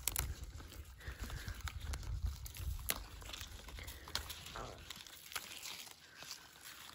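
Green onion leaves being picked by hand: a few sharp snaps of the leaves breaking off, a second or so apart, with light rustling of the plants. A low rumble sits under the first half and fades out.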